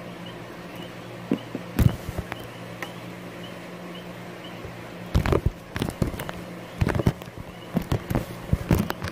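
Slime being handled and stretched: a couple of sharp clicks about two seconds in, then from about five seconds a fast run of crackling pops and clicks as the slime is squeezed and pulled, over a steady low hum.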